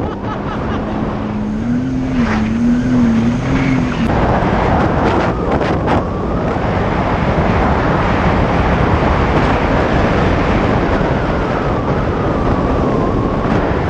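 Jet ski engine running with a steady, slightly wavering hum for the first few seconds. From about four seconds in, a loud rush of wind and water on the microphone takes over, with a wavering engine whine on top as the craft runs at speed.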